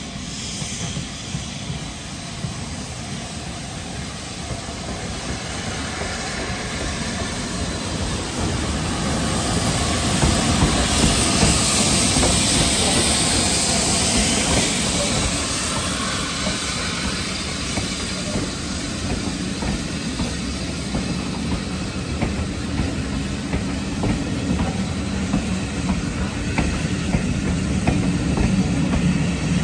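USATC Class S160 steam locomotive 'Omaha' coming in and passing close by, its steam hiss loudest as it goes past about ten to fourteen seconds in. Its train of coaches then rolls by, wheels clicking over the rail joints.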